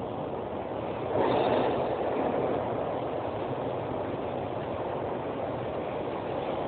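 Metro train approaching and pulling into the station, a steady rumble of wheels on rails that gets louder about a second in.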